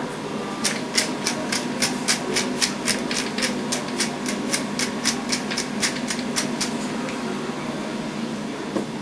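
Pepper mill being twisted over a pot: an even run of short crunching clicks, about four a second, that starts just under a second in and stops about seven seconds in. A steady hum runs underneath.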